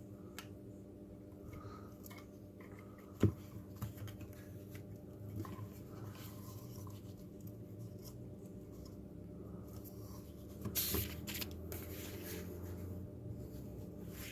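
Hands handling small plastic robot parts and a cable connector, with scattered light scrapes, one sharp click about three seconds in, and a brief scratchy rustle near eleven seconds.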